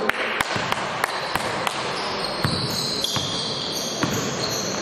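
Basketball dribbled on a gym floor, about three bounces a second at first and then more scattered, with sneakers squeaking on the court.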